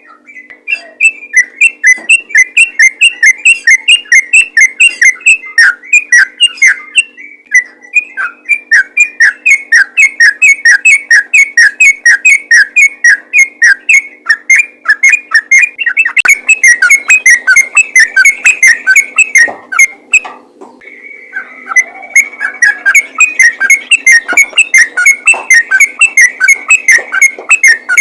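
Yellow-vented bulbul (trucukan) singing in rapid-fire 'ropel' style: quick falling whistled notes at about four or five a second, with short breaks about seven and twenty seconds in.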